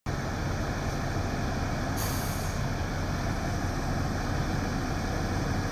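Heavy truck engine idling with a steady low rumble, with a brief burst of air-brake hiss about two seconds in.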